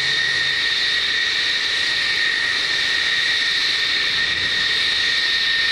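F-111's Pratt & Whitney TF30 turbofan engines running steadily on the ground: a loud, constant high-pitched whine over a rushing hiss.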